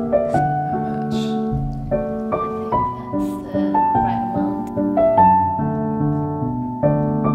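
Background music: slow, gentle solo piano playing a melody.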